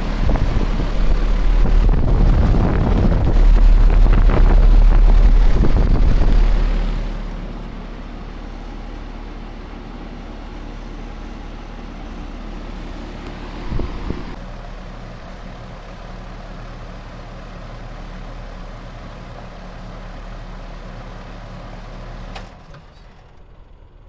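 Ruud Endeavor heat pump outdoor unit running, its compressor and condenser fan giving a steady hum, with a loud rush of air on the microphone for the first several seconds. About 22 seconds in the unit shuts off and the hum drops away.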